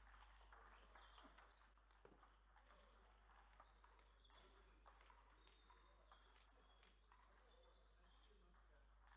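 Faint, irregular clicks of table tennis balls striking the table and rackets, some with a short high ping.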